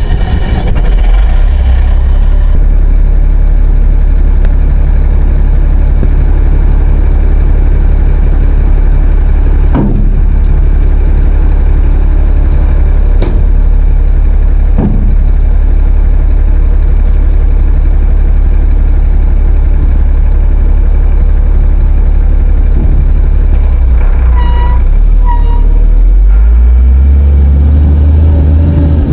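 The 2001 Sterling dump truck's diesel engine is started and runs steadily, with a few sharp knocks along the way. Near the end there are two short beeps, and the engine note rises and wavers as it is given more throttle.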